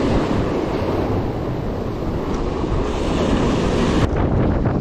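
Wind buffeting the microphone over surf washing against jetty rocks, a steady rushing noise that drops off abruptly near the end.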